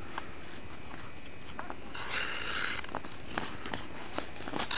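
Hockey sticks clacking against a puck and the ice: a scattering of short, sharp knocks, with a brief scraping rush about two seconds in, over a steady hiss.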